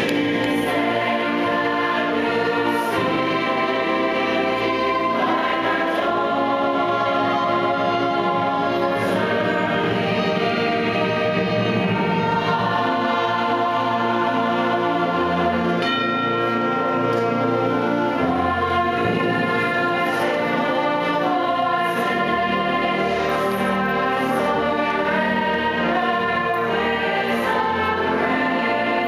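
Choral music: a choir singing a slow piece, held at a steady level throughout.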